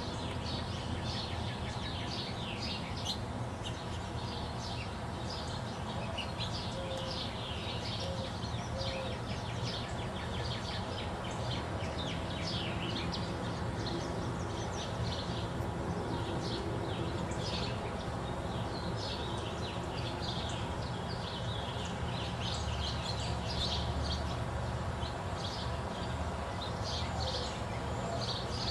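Several songbirds chirping and singing without a break, many quick high chirps overlapping, over a steady low background rumble.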